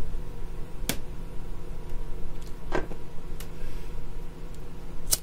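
A disposable lighter clicking as it is struck, four short sharp clicks spread over a few seconds, over a steady low hum.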